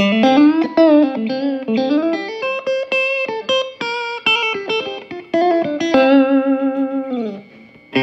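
Electric guitar (Fender Stratocaster) through a red-knob Fender Champ 12 tube combo amp, picked up by an iPhone microphone. It plays single-note lead lines with string bends and held notes, ending on a note bent down and let die away shortly before the end.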